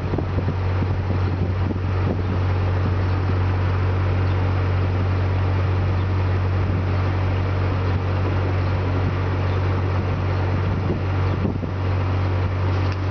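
Narrowboat engine running steadily while the boat is under way, a constant low hum, with wind noise on the microphone.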